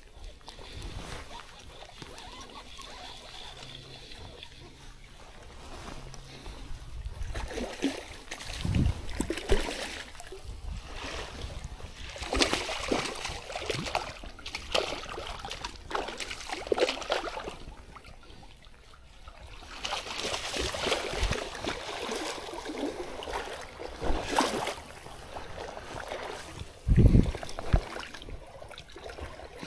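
Water splashing and sloshing in a shallow stream, in irregular spurts with a lull about two-thirds of the way through, and a dull thump near the end.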